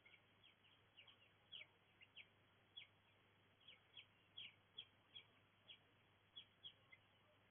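Birds chirping: short, sharp chirps that sweep down in pitch, about two a second and irregularly spaced, over a faint steady hiss. The chirps stop near the end.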